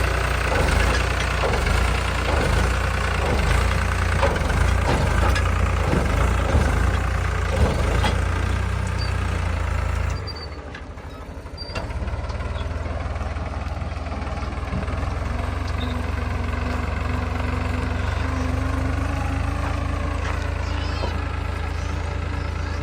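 Heavy diesel engine running steadily, with scattered knocks and clatter through the first ten seconds. The sound drops away briefly about ten seconds in, then the engine carries on steadily.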